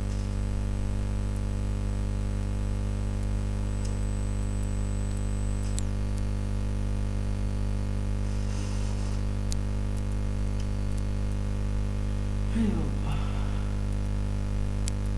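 Steady electrical mains hum, a low buzz made of many even, unchanging tones. A brief faint voice sound comes in about twelve and a half seconds in.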